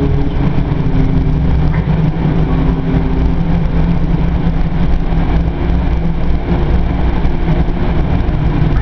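Cabin noise of an APTS Phileas bi-articulated bus under way: a steady low rumble from the drivetrain and road, with a hum whose tones fade about three seconds in and come back a few seconds later.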